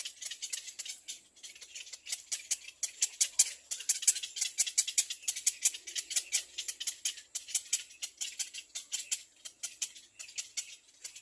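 Baby birds in a nest calling in a fast, unbroken run of short, high chirps, about six or seven a second.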